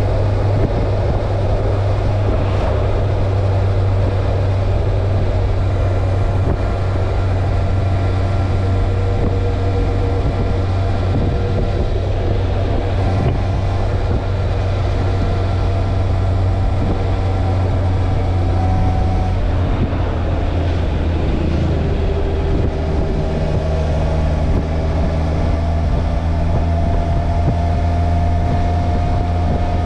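Motorcycle engine running steadily while riding, its pitch drifting and slowly rising in the last several seconds, with wind rushing over the microphone.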